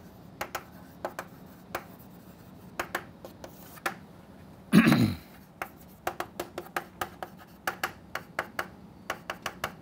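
Chalk on a blackboard as an equation is written out: a run of short, sharp taps and scratches, coming faster in the second half. About five seconds in, a brief vocal sound from the writer, falling in pitch.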